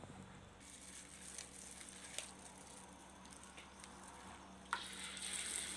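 Hot cooking oil in a wok, faintly sizzling with scattered small ticks; nearly five seconds in a louder sizzle starts suddenly as batter-coated banana pieces go into the oil to fry.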